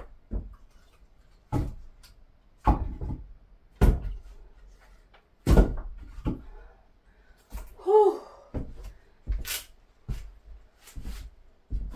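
Split firewood being handled: irregular wooden knocks and thumps as pieces are picked up and set down, mixed with footsteps on a wooden plank floor. A short squeak about eight seconds in.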